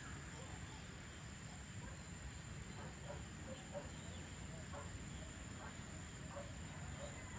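Outdoor evening ambience: a steady high-pitched insect drone over a low rumble, with faint, scattered short calls from about three seconds in.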